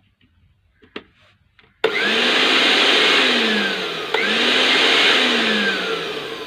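Panasonic blender motor base running with no jug fitted, its safety lock pressed by hand: it starts abruptly about two seconds in, cuts out briefly and restarts, then slows down with falling pitch near the end. The motor itself works; the fault is a broken lock on the jug.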